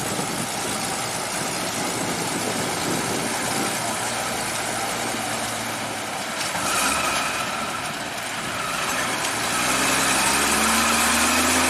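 Old Soviet ZIL truck engine running, then rising in pitch and getting louder in the last couple of seconds as it revs up.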